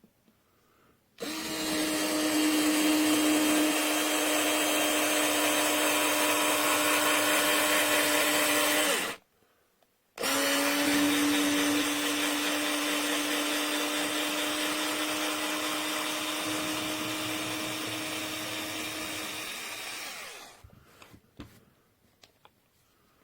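Small cordless electric screwdriver motor running freely with a steady whir and gear hum, run twice: about eight seconds, a one-second stop, then about ten seconds that slowly weakens before it stops.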